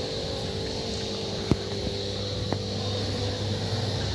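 Steady hum of barn machinery, several constant tones over a hiss, with two sharp clicks about a second apart near the middle, the first louder.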